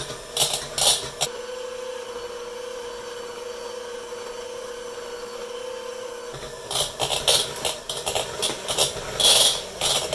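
KitchenAid electric hand mixer running with a steady motor hum as its beaters churn a thick mashed-potato mixture in a plastic bowl. The hum stops about six seconds in, and irregular clattering and scraping of the beaters against the bowl follow.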